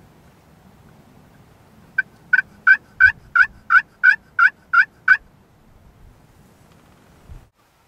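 Slate turkey call worked with a wooden striker, giving a run of about ten evenly spaced hen yelps, roughly three a second, starting about two seconds in and stopping about five seconds in.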